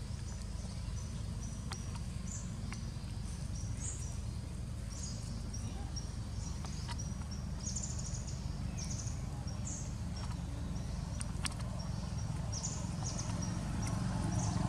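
Outdoor ambience: a steady low rumble under short, high chirps that come in quick runs, with a few faint clicks.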